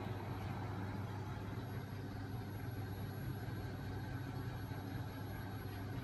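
Homemade magnet engine with a 5 kg flywheel and magnet crankshaft, driven by a small 12 V electric motor, running steadily with a constant low hum.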